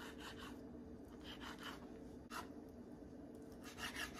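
Small knife cutting through sliced ham onto a wooden cutting board: faint short scraping strokes in a few clusters, over a steady low hum.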